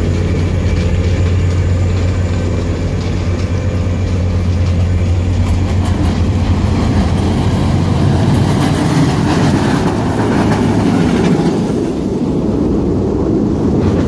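Track renewal train working on the line: a steady low machine hum with the rumble and clatter of its heavy rail machinery. The hum fades about halfway through as the rumble grows louder, then eases near the end.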